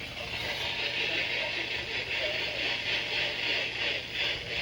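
Steady radio static hiss with a low hum underneath, and the emergency alert's voice faint beneath it.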